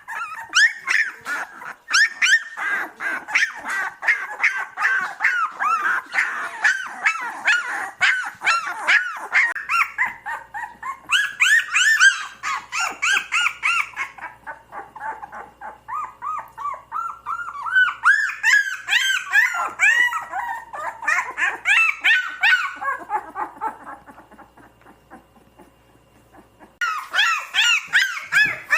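Puppies crying: rapid, overlapping high-pitched whimpers and yelps. A quieter lull comes about three-quarters of the way through, then the crying starts again abruptly near the end.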